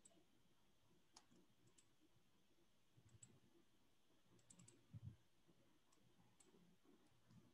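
Near silence with a few faint, sparse clicks from a computer mouse and keyboard, and a soft low thump about five seconds in.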